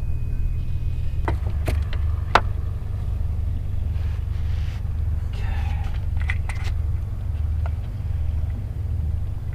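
Steady low rumble throughout, with a few sharp knocks in quick succession about two seconds in and a brief clatter of handling a little past the middle, as the fish is handled and hung on the scale on the boat's deck.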